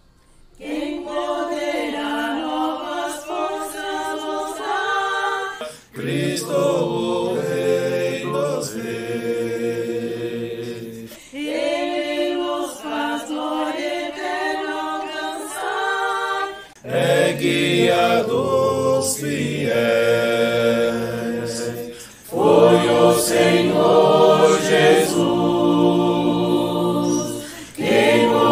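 Mixed virtual choir singing a hymn in phrases of about five seconds each. Women's voices sing some phrases alone, and men's lower voices join in for the others, fullest in the last part.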